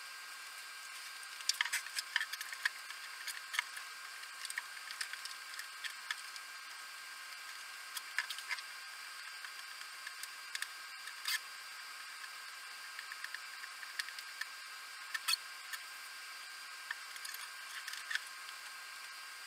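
Irregular light clicks and taps, sparse and uneven, over a steady hiss.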